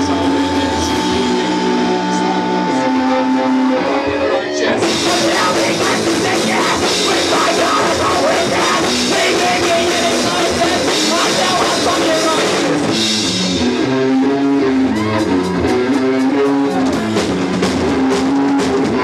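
Rock band music. A sparser guitar-led passage gives way suddenly, about five seconds in, to the full band with drum kit and guitars, with steady drum strokes later on.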